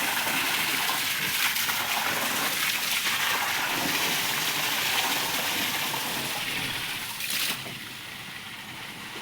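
Water spraying and splashing, as from a hose washing down a floor, in a steady hiss. It drops off sharply about seven and a half seconds in.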